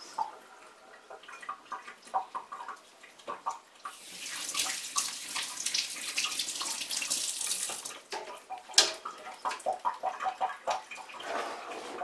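Water running in a steady hiss for about four seconds in the middle, with light clicks and knocks before and after.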